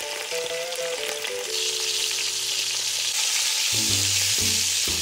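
Beef short ribs searing in hot olive oil in a Dutch oven, a steady sizzle that grows louder about a second and a half in. Background music plays underneath.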